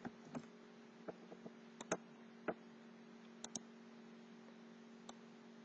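Scattered computer mouse clicks, about a dozen, some in quick pairs, over a faint steady hum.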